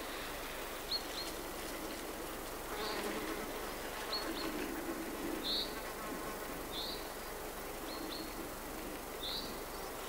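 An insect buzzing, strongest from about three to six seconds in, while a bird repeats short high calls, a quick double note alternating with a single slurred note, roughly one call every second or so.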